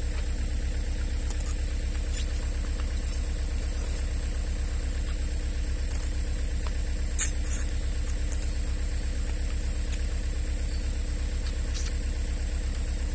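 An engine idling steadily with a low, even throb. Two sharp clicks come just past halfway.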